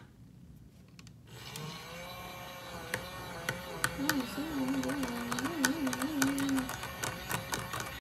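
Mini plastic washing machine for makeup brushes starting up about a second in and running with a whirring hum whose pitch wobbles, with rapid irregular clicking as a brush is held in its spinning drum of soapy water.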